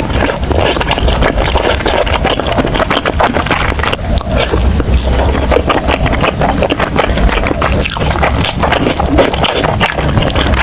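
Close-miked eating: loud, continuous chewing and mouth sounds, with many crackly clicks over a low rumble.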